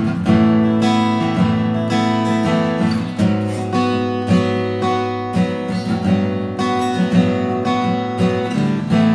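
Dolce TC-1 acoustic guitar with a solid cedar top, played with a run of chords strummed and picked, each new chord struck every half-second to second and left ringing.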